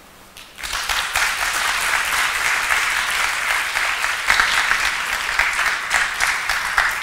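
Audience applauding, starting about half a second in and continuing steadily.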